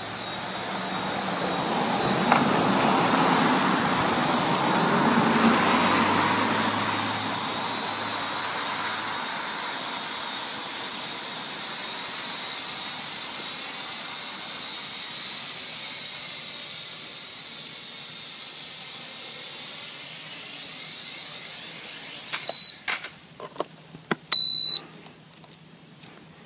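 Blade mQx micro quadcopter in flight, its small electric motors and propellers whining steadily, louder for the first several seconds and then fading. The whine cuts off suddenly near the end as the quad lands, followed by a few clicks and one short, loud high beep.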